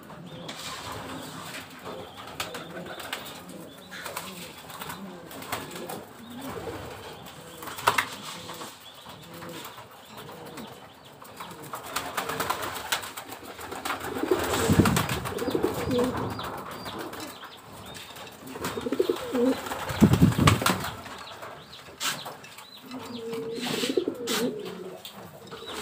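Domestic pigeons cooing over and over, with occasional wing flaps and a few sharp knocks.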